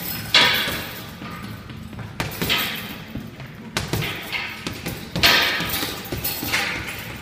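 Boxing gloves striking a heavy punching bag: a few sharp thuds at irregular intervals, over background music.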